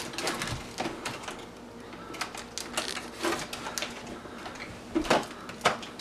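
Scissors snipping through plastic ties and packaging on a toy box: irregular sharp snips and clicks with rustling cardboard and plastic, a few louder snaps near the end.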